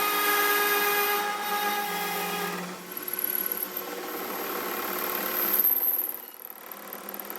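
A workshop power tool running, first with a steady whine, then rougher and more uneven from about three seconds in, dropping off near the end.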